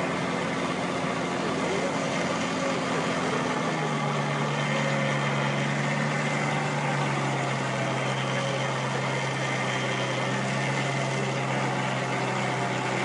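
Jeep Cherokee KK's 2.8 CRD turbodiesel engine running steadily while the vehicle sits stuck in snow on a tow strap. About four seconds in, its note drops to a lower, steadier pitch.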